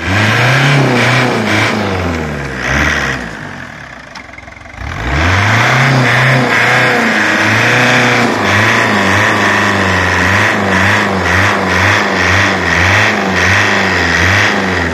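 Fiat 1.9 TD four-cylinder turbodiesel of a homemade 4x4 tractor revving hard under load in deep mud, its revs rising and falling. It drops back and quietens briefly about four seconds in, then revs sharply up again and stays at high, wavering revs.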